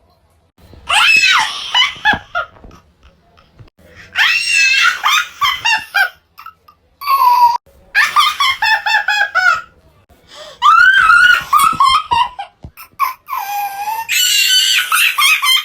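A series of about five separate high-pitched cartoon character laughs, one after another with short pauses between them. Each laugh is a squeaky, sped-up-sounding voice, some falling in pitch as they go.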